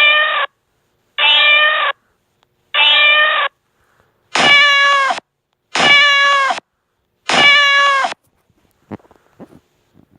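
Domestic cat meowing: six long, evenly spaced meows about a second and a half apart, each dipping slightly in pitch at its end. A few faint clicks follow.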